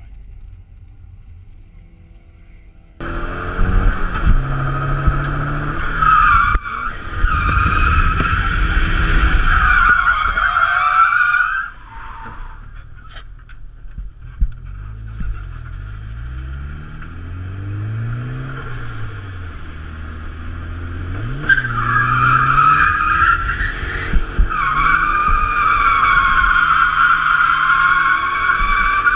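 Nissan 240SX's turbocharged SR20DET engine revving hard while its tires squeal through a drift, starting suddenly about three seconds in and easing off about twelve seconds in. Revs rise and fall with less tire noise for several seconds, then a second long run of tire squeal begins just past twenty seconds and continues to the end.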